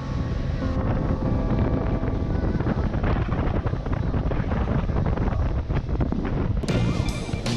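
Motorboat running at speed on open sea: heavy wind buffeting the microphone over the rush of the wake and the hull knocking on the waves.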